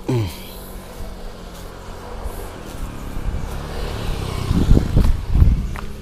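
A motor vehicle passing close by, its engine hum building to a peak about five seconds in.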